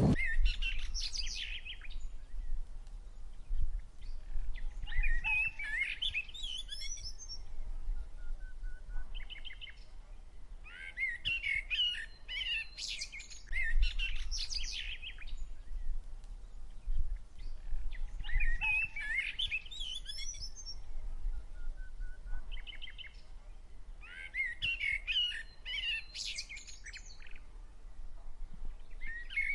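A songbird singing warbling, chirping phrases that repeat every few seconds, with short runs of quick ticking calls between them, over a steady low rumble.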